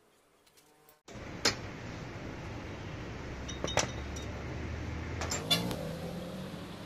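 Faint for about a second, then steady workshop background noise with a low hum, broken by three sharp metallic clinks as engine parts and tools are handled.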